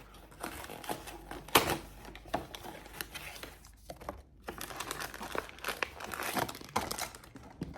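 Blind-box packaging being handled and torn open: irregular crinkling and tearing, with one sharp snap about a second and a half in and a short lull near the middle.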